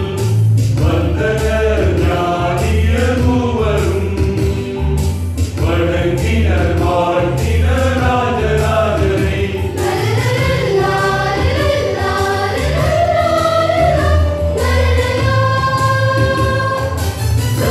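Mixed church choir of men, women and children singing a Malayalam Christmas song in parts, over instrumental accompaniment with a deep bass line moving in steps.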